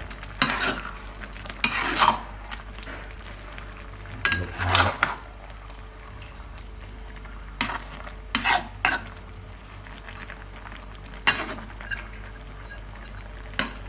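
Metal spatula scraping and clinking against a metal wok as a thick coconut-milk stew of stingray is stirred, in about seven irregular strokes with short pauses between them.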